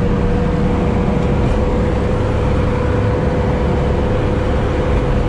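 Sherp amphibious ATV's diesel engine running steadily under load while the vehicle moves through water and broken ice, heard from inside the cab: a low drone with a steady whine held over it.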